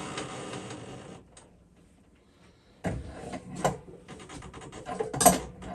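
A water heater tank being turned and handled: a scraping rub until about a second in, a short pause, then a series of knocks and clunks, the loudest near the end.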